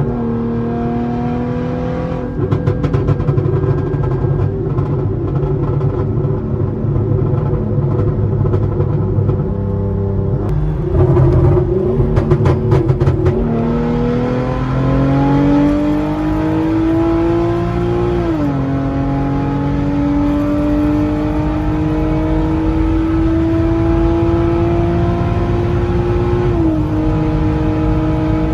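A tuned 3.8-litre V6 with test pipes in place of its catalytic converters, accelerating through the gears. Its pitch climbs steadily and drops suddenly at each upshift, a few times. Bursts of crackling exhaust pops come in twice, the louder lot around the middle.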